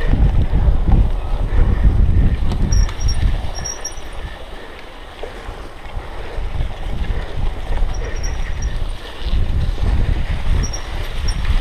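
Wind buffeting a GoPro Hero 3 action camera's microphone, mixed with the rumble and rattle of a cyclocross bike riding fast over rough grass and leaf-covered dirt. Loudest in the first few seconds and again near the end, easing off in the middle.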